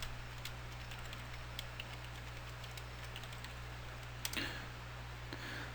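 Computer keyboard keystrokes: scattered single key clicks, a few sharper ones about four seconds in, over a steady low hum.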